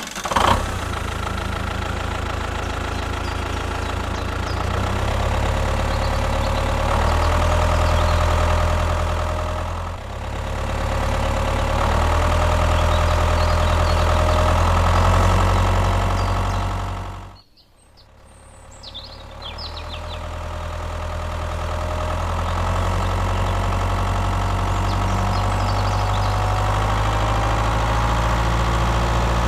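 An engine running steadily. It cuts out abruptly about seventeen seconds in, then starts again and builds back up to a steady run.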